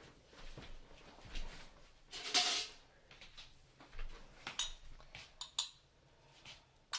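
Dishes, utensils and a glass blender jar being handled on a kitchen counter: scattered light clinks and knocks, a brief noisy scrape about two and a half seconds in, and a few sharp knocks in the second half.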